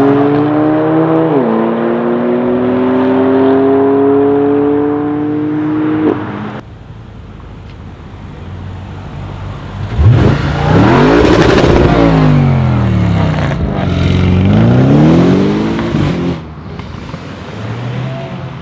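A car accelerating hard, its engine pitch climbing through one upshift for about six seconds. Then an Audi RS6 C7's twin-turbo V8 opens with a sharp crack and is revved up and down twice, settling to a low, quieter run near the end as the car pulls away.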